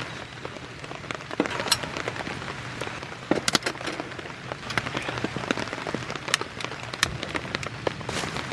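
Steady rain falling, with scattered heavy drops hitting sharply close by at irregular moments.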